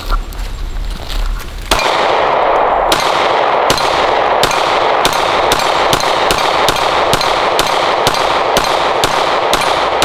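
A steady string of 9 mm pistol shots, about a dozen and a half-plus shots a second, beginning about three seconds in, with steel targets clanging when hit. A steady rushing noise comes in just before the shooting starts.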